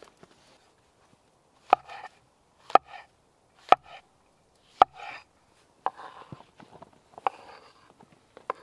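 Knife cutting champignon mushrooms on a wooden cutting board. There are four sharp knocks of the blade on the board about a second apart, each with a short crunch of the mushroom flesh. Near the end come quicker cuts and a scraping as the slices are pushed off the board with the knife.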